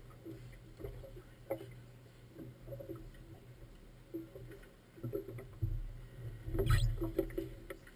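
Small boat tied up at a floating dock: water slapping against the hull and irregular light knocks, over an uneven low rumble, with one louder knock about seven seconds in.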